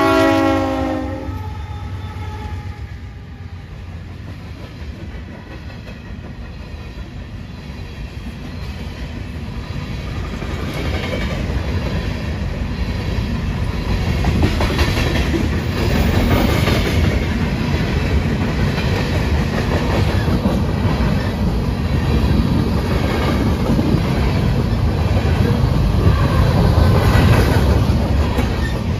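A Union Pacific freight train's multi-tone horn chord cuts off about a second in, then the diesel locomotives rumble past and a long string of hopper cars follows, their wheels clattering rhythmically over the rail joints. The clatter builds from about a third of the way in and is loudest near the end.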